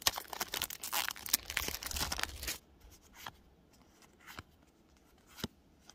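Foil wrapper of a Pokémon card booster pack being torn open and crinkling for about two and a half seconds, then a few faint ticks as it goes quiet.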